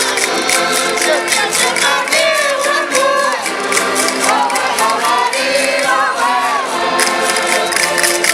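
Women singing a Minho folk song in voice together, with concertinas (diatonic button accordions) playing steady chords beneath and a regular ticking beat.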